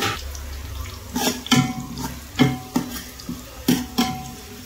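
Spatula knocking and scraping against a pan in quick, uneven strokes, stirring sliced onions that sizzle in hot oil.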